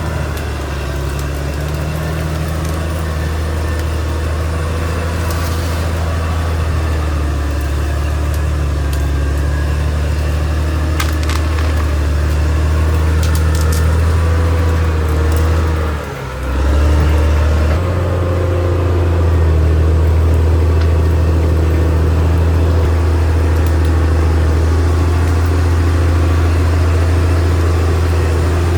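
CAT D6R XL bulldozer's diesel engine running steadily under load, with occasional snapping and crackling of wood as it pushes through vegetation. The engine sound drops briefly a little past halfway, then picks up again.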